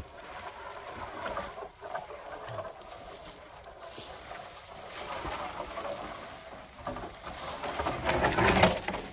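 A long tree trunk dragged over dry dirt, leaves and grass, its trailing end scraping and rustling along the ground. The scraping is loudest about eight seconds in, as the branched end passes close by.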